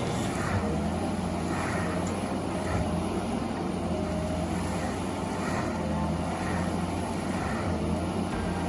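A heavy machine's engine running steadily with a low, even hum.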